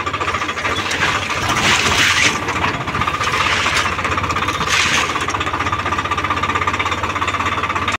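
Diesel tractor engine running steadily as the tractor drives along, heard from the driver's seat, with a clattering beat and a steady whine. Brief rushes of hiss come about two, three and a half, and five seconds in.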